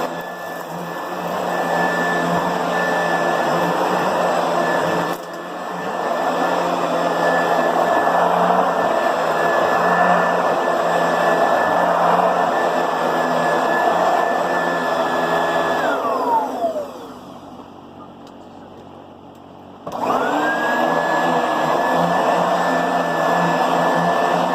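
Oreck vacuum cleaner running with a steady high motor whine. About sixteen seconds in it is switched off and its motor winds down, falling in pitch; about four seconds later it is switched on again and quickly spins back up to the same whine.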